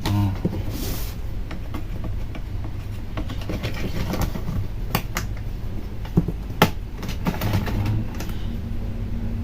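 Plastic snap clips of a laptop's bottom case clicking loose as the case is pried open with a plastic pry tool. There are scattered sharp clicks; the loudest come about five seconds in and again a second and a half later.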